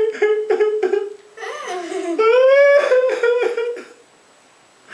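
A high, wavering voice making drawn-out, whining cries in several stretches, with no clear words. It stops about a second before the end.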